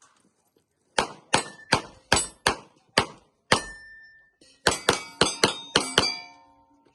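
Pistol fired in quick succession at steel targets, each shot followed by the clang of a struck steel plate ringing. First a run of about seven, then a short pause, then a faster run of about six, the last plates ringing on near the end.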